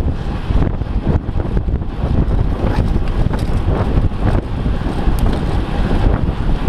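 Heavy, steady wind rumble buffeting the microphone of a camera moving at speed, with a few faint clicks and rattles over it.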